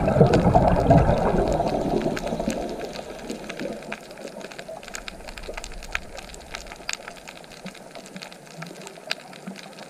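Underwater sound on a coral reef: a loud bubbling rush with a low rumble that fades over the first three seconds or so, leaving a quieter hiss with scattered sharp clicks. It cuts off suddenly near the end.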